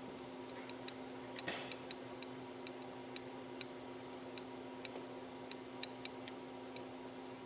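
Faint, light ticking, about two to three small ticks a second at uneven spacing, over a steady low hum.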